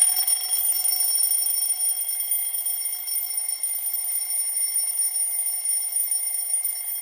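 IKEA DEKAD twin-bell alarm clock ringing, its bells sounding loud and continuous with several steady high tones.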